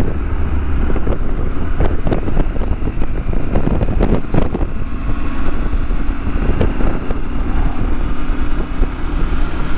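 Motorcycle engine running at road speed with wind rushing over the microphone, gusty in the first half; about halfway through the engine settles into a steady note.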